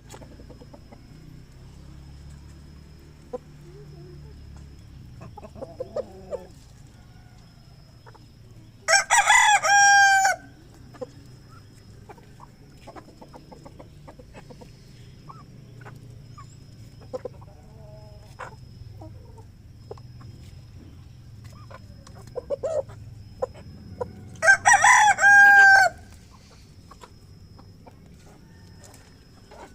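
A rooster crowing twice, about fifteen seconds apart, each crow about a second and a half long. Between the crows there are soft chicken clucks and scattered small clicks, over a faint steady high-pitched tone.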